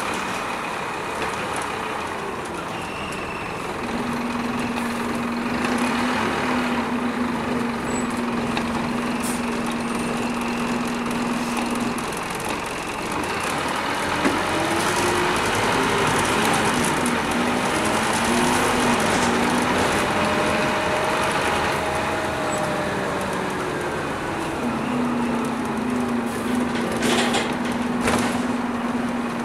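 Scania N230UD double-decker bus's diesel engine heard from inside the passenger saloon while under way: a steady drone that gives way in the middle to rising and falling pitch as the bus changes speed, then settles back to the steady drone near the end.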